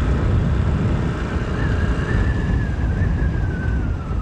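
Wind rumbling on the microphone of a moving motorcycle, mixed with engine and road noise. A faint thin whine comes in about halfway through and slowly drops in pitch.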